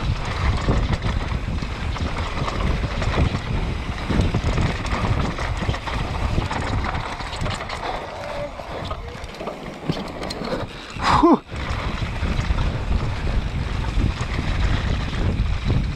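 Wind buffeting the microphone and a mountain bike's tyres and frame rattling over a dry dirt trail at high speed. About eleven seconds in comes one short, loud, pitched sound.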